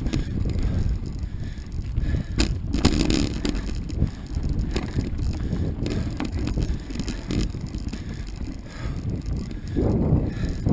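Mountain bike riding over a dirt singletrack: a steady rumble of tyres on the ground, with scattered sharp clicks and rattles from the bike. The rumble grows louder near the end.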